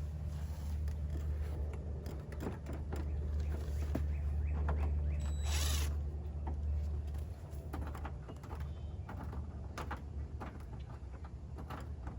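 Small clicks, knocks and scrapes of screws being worked out of car body trim, with a short hiss a little past halfway, over a steady low hum.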